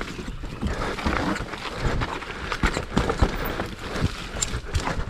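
Scott Gambler downhill mountain bike descending a muddy, rocky trail: tyres squelching and skidding in mud, with irregular knocks and rattles from the frame, chain and suspension as the wheels hit rocks and roots.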